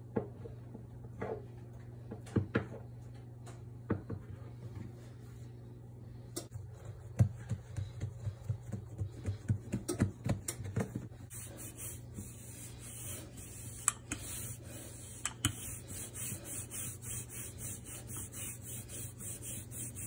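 Pizza dough being worked by hand on a countertop: scattered light knocks and taps, then from about halfway a wooden rolling pin rolling back and forth over the dough in a rhythmic rubbing, about twice a second. A steady low hum sits underneath.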